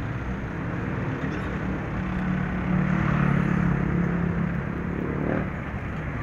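Road traffic passing close by. One vehicle's engine drone swells in the middle and drops away about five seconds in.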